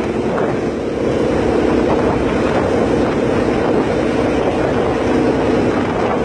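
Tour boat's engine running steadily under way, a constant hum, with wind buffeting the phone's microphone.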